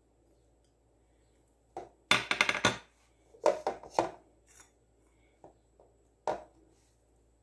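Plastic mini-blender cup knocked and handled while grated potato is scraped and tapped into it: a quick run of clatters about two seconds in, then a few separate knocks and clicks.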